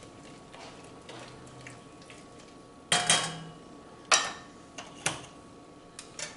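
A metal spoon stirring in a stainless steel saucepan, faint at first. About three seconds in come three sharp metallic clanks of spoon and cookware about a second apart, with a few lighter clicks near the end.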